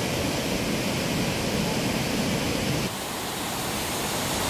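Steady rushing of a mountain stream's flowing water; the sound changes abruptly and dips slightly about three seconds in.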